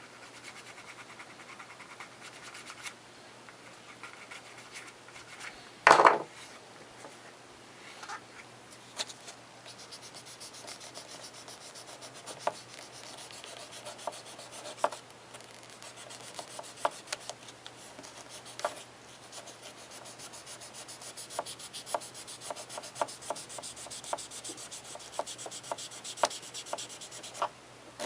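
Leather edge being burnished by hand, a steady rubbing that works beeswax into the edge by friction, with scattered light clicks and one loud knock about six seconds in.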